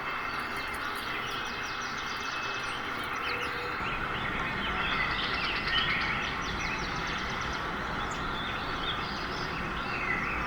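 Several small birds chirping and calling, many short high chirps over each other, busiest midway, over a steady background hiss.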